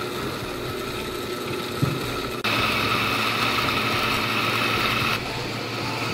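Countertop blender with a glass jar running, puréeing tomatoes, cilantro and onion into a liquid sauce. It runs steadily, then gets louder and higher from about two and a half seconds in until about five seconds in, before settling back.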